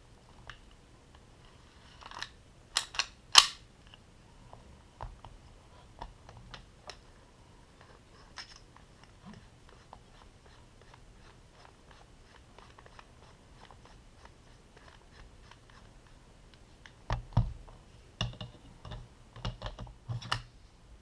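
Parts of a KJW Glock 23 airsoft pistol being handled during disassembly: scattered clicks and knocks, the loudest a few sharp clicks about three seconds in and a cluster of clicks and knocks near the end.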